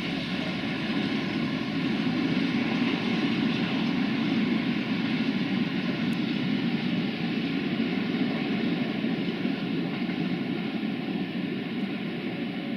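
Freight train of hopper wagons rolling away over the track: a steady rumble of steel wheels on the rails.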